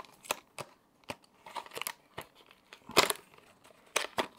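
A small cardboard box of an NVMe SSD and the drive's plastic packaging being opened by hand: a string of short clicks, scrapes and crinkles, the loudest about three seconds in.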